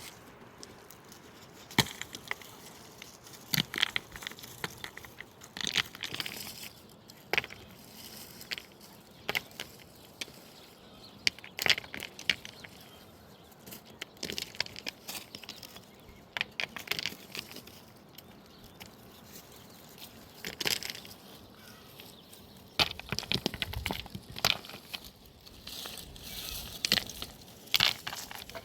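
Irregular sharp knocks and clicks, one every second or two, with a busier stretch of clatter about two-thirds of the way through.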